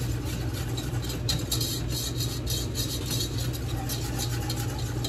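Wire whisk stirring a roux in a metal saucepan: a quick, even run of scraping strokes, about three or four a second, over a steady low hum.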